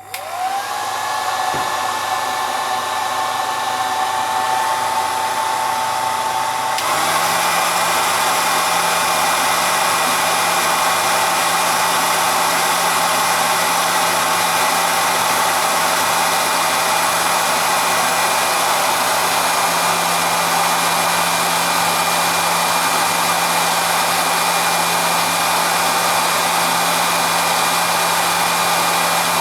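Hot-air blower switched on, its motor whine rising as it spins up, then stepping up to a louder setting about seven seconds in and running steadily. It is heating an intake air temperature sensor to watch its resistance change.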